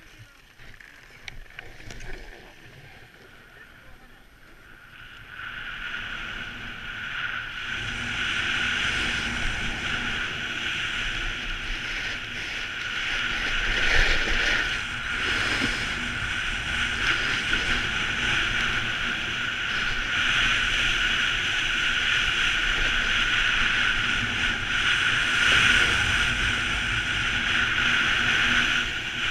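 Snowboard sliding and carving down a groomed piste: a steady rushing scrape of the board on packed snow mixed with wind on the helmet camera. It starts quietly with a few light knocks, then rises about five seconds in as the board picks up speed and stays loud.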